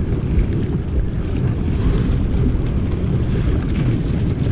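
Sea water sloshing and churning right at the microphone, which sits at the waterline, as someone wades deep through a rocky sea gully. It comes through as a steady heavy low rumble of water and wind buffeting on the mic, with small splashy clicks.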